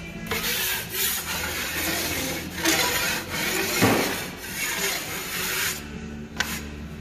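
Steel drywall taping knife scraping joint compound across drywall in several long strokes, a rough rasping hiss that stops about six seconds in.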